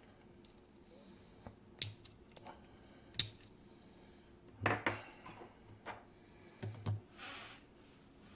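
Small sharp metallic clicks and taps of a tool working at the retaining clip on a KABA Penta lock core during disassembly: two sharp clicks about two and three seconds in, then short clusters of taps.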